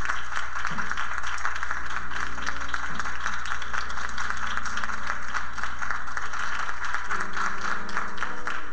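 Audience applauding steadily, with faint music underneath.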